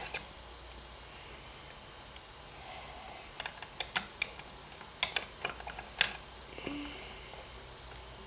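Light, irregular plastic clicks and taps as small plastic toys are handled and set down on a tabletop, mostly in the middle few seconds, with a brief soft rustle before them.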